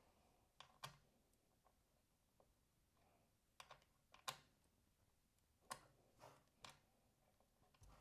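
Faint, scattered small clicks of hands handling metal screws and parts at a PC motherboard, as CPU cooler mounting screws are tried in the backplate standoffs; the clearest click comes a little after the middle.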